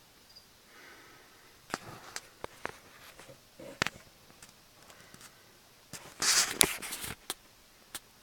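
Scattered clicks and taps, then about six seconds in a louder scraping rustle lasting about a second: handling noise from a phone camera being moved against a glass terrarium.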